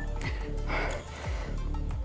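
Background music with a deep bass line and a beat.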